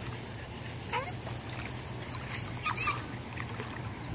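Bird calls: a short rising whistle about a second in, then a louder warbling whistle that sweeps up and down in pitch near the middle, over a steady low background noise.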